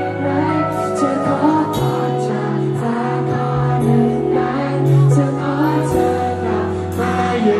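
Live band playing a pop-rock song: a man singing into a microphone over electric guitar, bass and drums.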